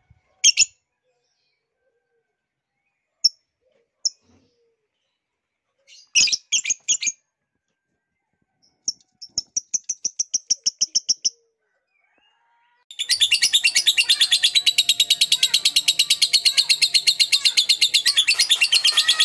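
Bird chirping: a few separate high chirps, a quick even run of chirps about nine seconds in, then from about thirteen seconds a continuous rapid chattering song.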